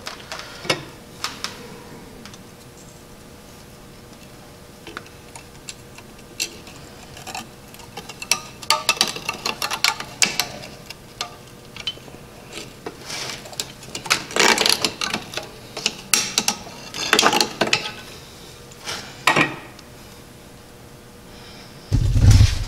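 Metal clinks, taps and scraping as drum brake shoes and their hardware are worked into place on the backing plate by hand and with pliers, in irregular clusters. Near the end there are a few heavy low thumps.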